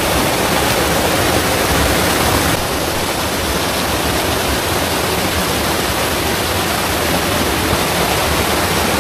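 Small rocky stream rushing and cascading over stones: a steady loud rush of water, a little quieter after about two and a half seconds.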